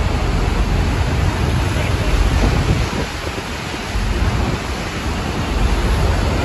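Horseshoe Falls at Niagara heard close up: a steady, loud rush of falling water and churning spray, with a low wavering rumble of wind on the microphone.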